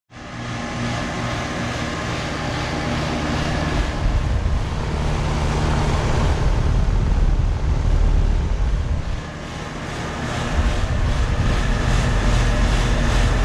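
Outdoor condensing units of central air conditioners, a 1991 Payne Tech2000 and a 2005 Rheem Classic, running: a steady compressor hum under the rushing of the condenser fan. The sound dips briefly around nine seconds in, then comes back up.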